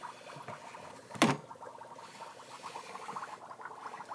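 Dry ice bubbling and gurgling in a bowl of water, with one sharp knock about a second in.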